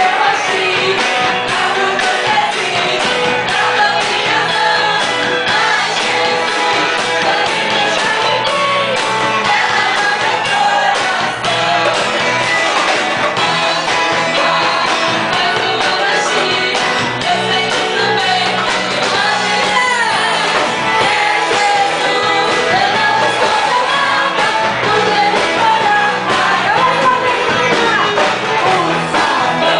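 Christian worship song sung with instrumental accompaniment, continuing steadily at full volume.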